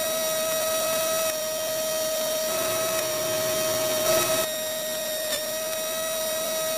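Small electric motor of a homemade miniature rice-husking machine running at a steady, high-pitched whine, with a couple of light clicks.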